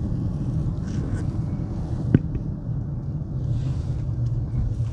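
Toyota car heard from inside the cabin while driving: a steady low rumble of engine and road noise. A single sharp knock sounds about two seconds in.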